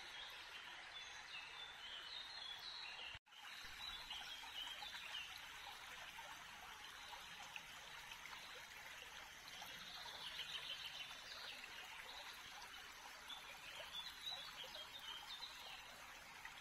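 Faint steady rushing noise like running water, with scattered small bird chirps over it; the sound cuts out for an instant about three seconds in.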